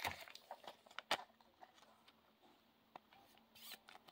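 Faint handling of trading cards in the hands: a few light clicks and taps as the cards are flipped through, with a brief soft rustle near the end.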